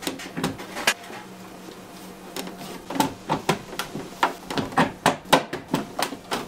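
Aftermarket spoiler knocking and clicking against a Honda CR-V liftgate as it is pushed and shifted by hand to line up its mounting holes: irregular short knocks, coming faster in the second half.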